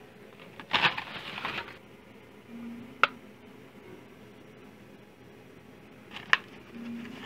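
Hot Wheels blister-pack cards being handled: a crinkly plastic rustle about a second in, then two sharp clicks a few seconds apart as cards are set down on the stack.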